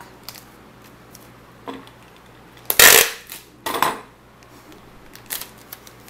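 Packing tape being worked onto corrugated cardboard by hand: a few short rasping rips of tape, the loudest two about halfway through, between quieter rubbing and handling.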